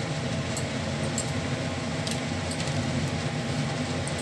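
Steady low kitchen hum with a few light clinks of a metal spoon as garam masala is sprinkled over the biryani layers.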